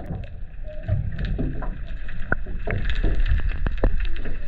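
Water heard through a submerged camera's housing: a steady low rumble with many scattered sharp clicks and crackles.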